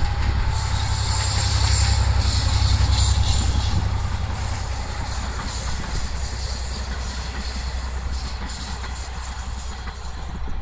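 V/Line N-class diesel-electric locomotive, with its 12-cylinder EMD two-stroke diesel, hauling passenger carriages past: a deep engine rumble, loudest in the first few seconds, with wheels clattering over the rail joints, fading as the train moves away.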